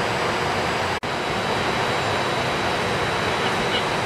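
A steady rushing noise, broken by a brief dropout about a second in.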